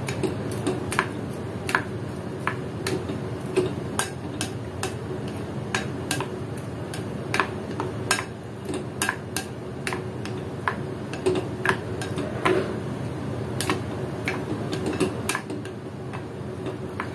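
A spatula stirring thick yogurt raita in a glass bowl, clicking against the bowl's side irregularly, two or three times a second, over a steady low hum.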